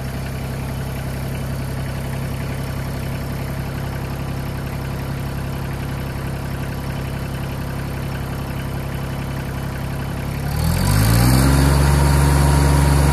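LS MT225S compact tractor's diesel engine running steadily while the front loader raises a heavy pallet of concrete bags near its lift limit. About ten seconds in it is revved up and holds at a higher, louder speed.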